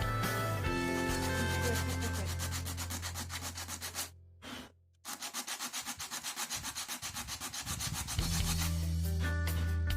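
Sandpaper scraping over a helmet's painted shell in quick back-and-forth strokes, about four or five a second, with a short pause about four seconds in.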